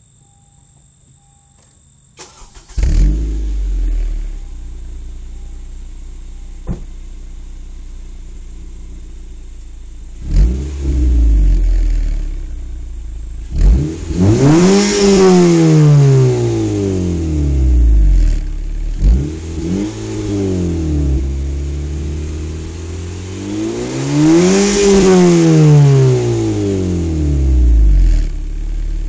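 2012 Honda Civic Si's 2.4-litre four-cylinder engine through its stock exhaust, heard at the tailpipe: it cranks and starts about three seconds in and settles to a steady idle. It is then blipped several times and given two long revs that rise in pitch and fall back to idle.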